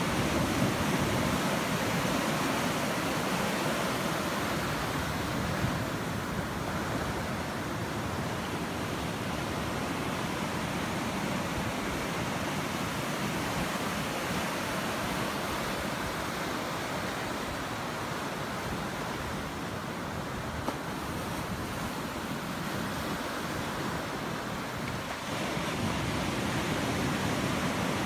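Small ocean waves breaking and washing up on a sandy beach: a steady surf hiss that swells a little near the start and again near the end.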